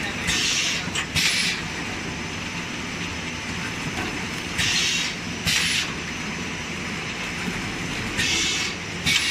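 Automatic L-bar sealer and shrink-wrap packing machine for jumbo tissue rolls running with a steady mechanical hum. About every four seconds it gives a pair of short hisses, under a second apart, as it cycles through one roll.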